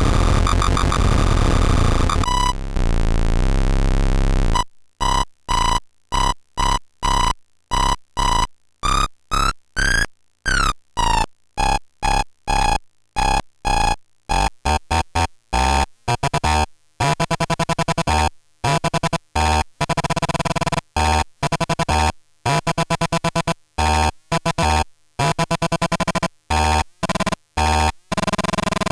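tetraBIT prototype synthesizer, a 40106 hex-oscillator design, putting out harsh, buzzy square-wave tones. A dense continuous drone for the first four seconds or so, then chopped into short rhythmic bursts with silences between, with a rising and falling pitch sweep about ten seconds in and low pulses under the later bursts.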